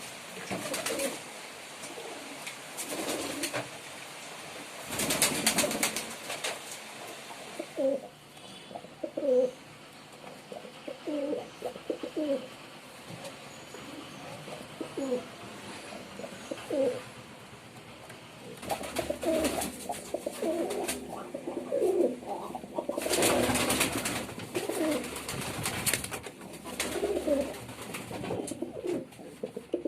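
Male domestic pigeon cooing over and over in short low calls. Two spells of loud rushing noise, about five seconds in and again after about twenty-three seconds, are louder than the coos.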